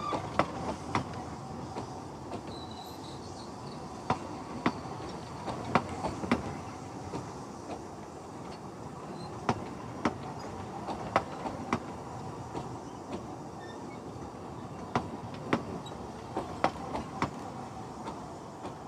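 Narrow-gauge passenger coaches rolling slowly past, with a steady rumble and irregular sharp clicks and knocks from the wheels and couplings running over the track.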